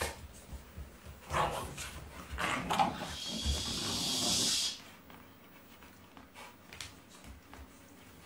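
Dogs wrestling and growling: two loud rough growls about a second and two and a half seconds in, then a steady hiss lasting over a second that cuts off suddenly, followed by quieter light scuffling clicks.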